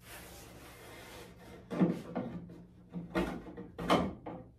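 Hand sanding across the urethane-finished fabric covering of a wooden ultralight wing: a faint rasp, then a few short, louder strokes in the second half.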